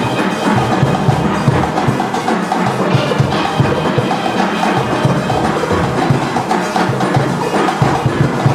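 A steelband playing a full arrangement: many steel pans striking quick runs of notes over drum kit and rhythm-section percussion, with a steady driving beat.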